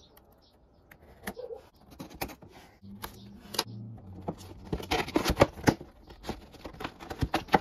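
A utility knife slits the tape seal on a cardboard action-figure box. Then the box is opened and handled, with a run of sharp clicks, scrapes and crinkles of cardboard and clear plastic packaging, busiest in the second half.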